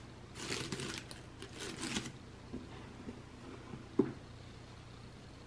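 Hands handling a cardboard gift box and its ribbon bow: two short spells of rustling in the first two seconds, a few light taps, and a single sharp knock on the box about four seconds in.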